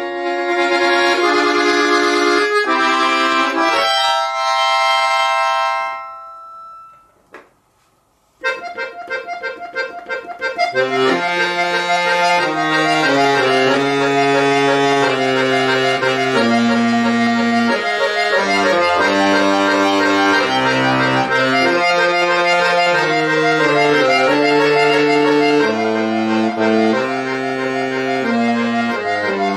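Solo chromatic button accordion playing: sustained chords that fade out to a brief pause about eight seconds in, then a quicker passage with a moving bass line beneath the chords.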